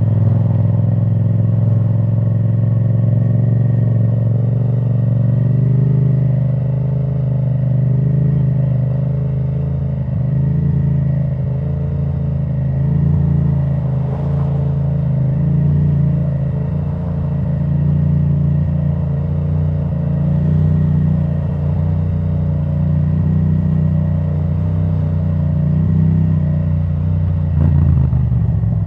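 2017 Yamaha MT-07's parallel-twin engine through an Akrapovic titanium exhaust with the dB killer removed, running steadily with its pitch wavering slightly. It gets a little louder near the end.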